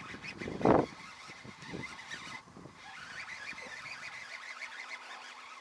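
Steady wind and water hiss on an open boat, with one dull thump about a second in.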